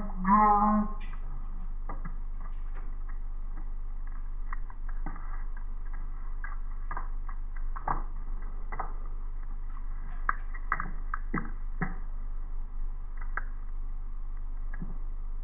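Camera handling noise: scattered soft clicks and knocks at irregular times over a steady low electrical hum.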